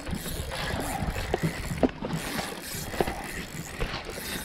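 Wind and sea noise on a small fishing boat, with scattered clicks and knocks from a spinning reel being handled and cranked as a hooked fish is brought in.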